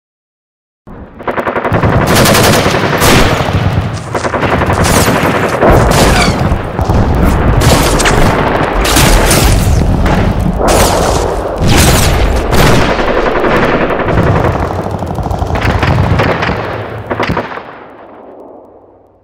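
Battle sound effect of dense, rapid machine-gun fire with louder single shots standing out. It starts about a second in and fades away near the end.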